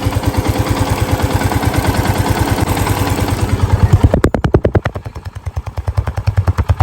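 Yamaha FZ-S V2's single-cylinder fuel-injected engine running after a rebuild with new piston and cylinder block. It runs at a steady quick beat, then about four seconds in drops to a slower, uneven beat.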